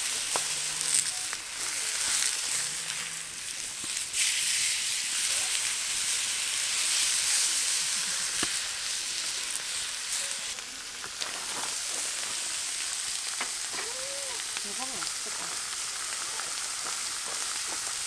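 Food frying in a pan, a steady sizzling hiss with scattered sharp pops of spattering fat.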